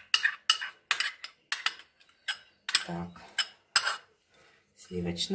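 A metal spoon clinking and scraping against a small porcelain bowl as melted butter is scraped out into a glass mixing bowl: a quick run of sharp clinks, about three a second, stopping about four seconds in.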